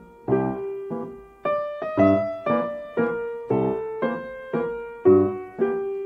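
Background piano music: notes and chords struck about twice a second, each ringing and fading before the next.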